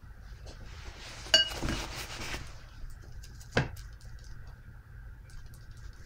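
A paintbrush clinks against a metal watercolour palette, with a short ringing clink about a second in. It then swishes and scrubs as it picks up paint, and taps once more sharply a couple of seconds later.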